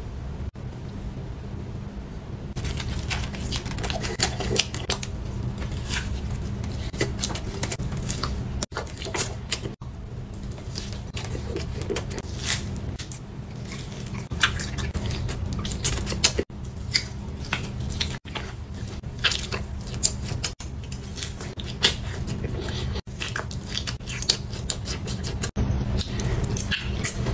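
Eating sounds: a metal spoon and fork clicking and scraping on a plate, and chewing, with many short sharp clicks over a steady low hum.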